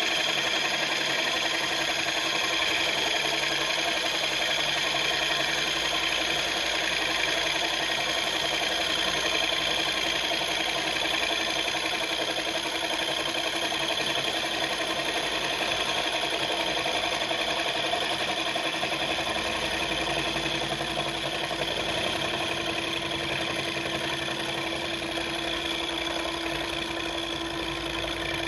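Milling machine running steadily as a 38 mm indexable face mill at 800 rpm takes a light finishing pass across a metal plate held in a vise. Several constant tones sit over an even machine noise.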